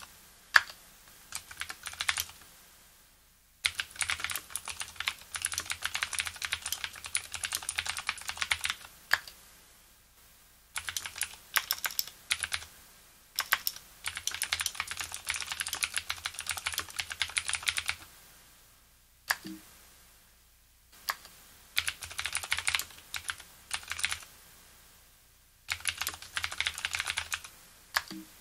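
Typing on a Leopold FC750R mechanical keyboard with clicky Cherry MX Blue switches whose springs are lubricated: rapid sharp key clicks in runs of a few seconds, broken by short pauses.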